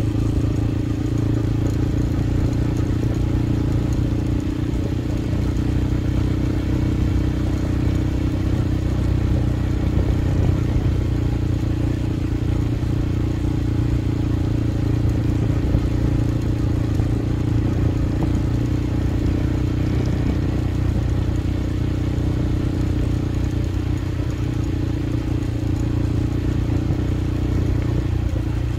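Small motorcycle engine running steadily at cruising speed, heard from the rider's seat, with rumble from the tyres on a dirt road.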